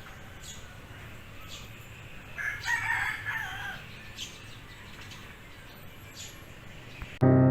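A rooster crowing once, about two and a half seconds in, over a low steady background with faint high chirps. Piano music starts abruptly near the end.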